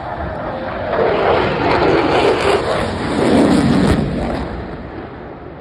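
Jet noise from an F-22 Raptor's twin Pratt & Whitney F119 turbofans as it passes. The sound swells about a second in, falls in pitch as it peaks a little past the middle, then fades away.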